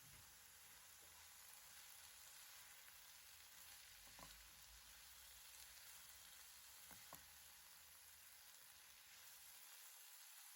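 Faint, steady sizzling of food frying in a pan, with two light clicks about four and seven seconds in.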